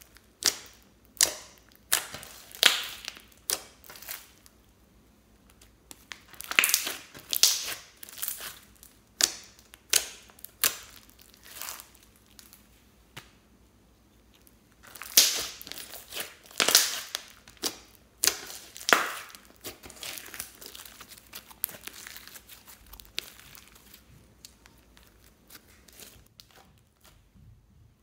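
Hands squeezing, stretching and folding glossy slime mixed with floam foam beads, making sticky pops and crackles in irregular bursts, with a couple of quieter spells between handfuls.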